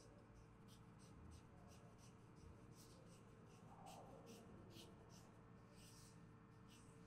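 Faint rubbing and swishing of hands on bare skin during a shoulder and neck massage: short soft strokes, about one every half second, irregularly spaced.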